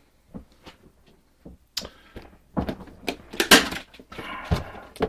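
Cardboard Funko Pop boxes being handled: a few light clicks, then louder scrapes and knocks of cardboard being moved and picked up, with a dull thump about four and a half seconds in.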